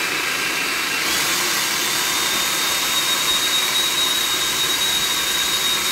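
Countertop food processor motor running at full speed, pureeing softened cauliflower with canned pumpkin. Its steady high whine steps up in pitch about a second in.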